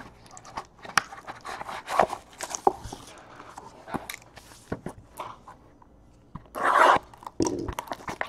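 Cardboard trading-card boxes and foil-wrapped packs being handled and set down on a table: scattered light knocks, taps and scrapes. About six and a half seconds in comes a louder burst of crinkling and tearing as the plastic shrink-wrap on a sealed box is ripped, then a shorter second rip.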